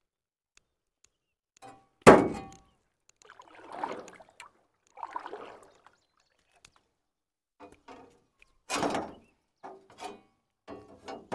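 Handling noise as a fish is worked free of a fishing net: a sharp thunk about two seconds in, the loudest sound, then soft rustling and a run of short knocks and scrapes.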